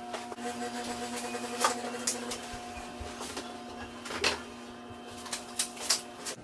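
A steady machine hum with scattered light clicks and taps.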